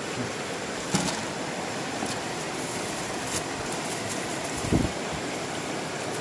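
Steady rush of flowing stream water, with a few faint clicks and one dull thump about three-quarters of the way through.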